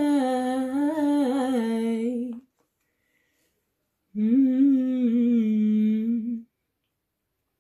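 A woman singing unaccompanied: a wavering held note that stops about two and a half seconds in, then after a silent pause a second sustained note hummed with closed lips for about two seconds.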